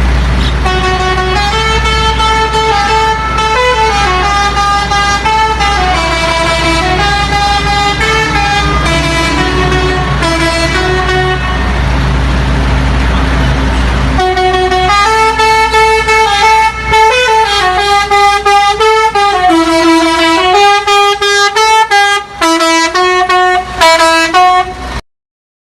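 Lorry 'telolet' musical air horn playing a tune in stepped notes, over a low steady engine rumble. About halfway through it changes to a second, more clipped tune that ends in short repeated blasts and stops abruptly.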